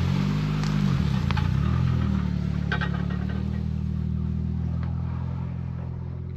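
Valmet 500 tractor's diesel engine firing and running unevenly after long storage, its speed wavering at first, then holding steady while slowly getting quieter. It runs lazily, short of fuel, which the owner puts down to a clogged fuel filter.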